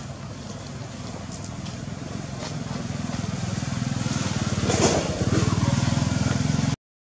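A vehicle engine running with a fast low throb, growing steadily louder, then cut off abruptly just before the end.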